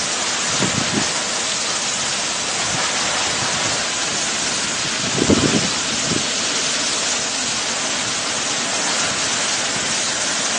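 Heavy wind-driven rain of a tropical storm, a steady loud hiss, with short low rumbles of wind about five seconds in.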